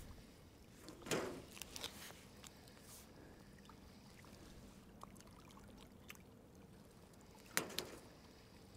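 Small waves lapping and slapping against a concrete quay wall, with two louder splashes, one about a second in and one near the end, over a faint steady hum.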